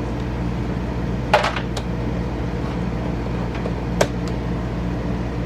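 Sharp clicks and taps of the door handle's plastic parts being worked loose: a short cluster about a second and a half in, and a single sharp click about four seconds in. A steady low hum runs underneath.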